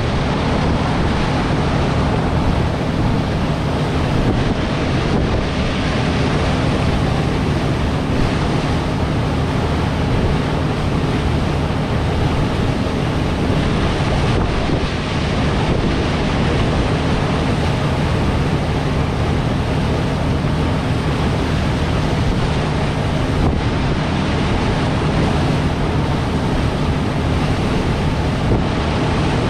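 Chao Phraya Express Boat under way: the engine runs with a steady low hum under a constant rush of water along the hull, and wind buffets the microphone.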